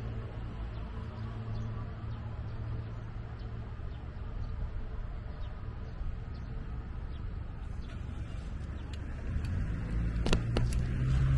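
Steady low hum of city street traffic at an intersection. About ten seconds in, a few sharp clicks come, then a louder rumble with wind on the microphone as the bicycle moves off.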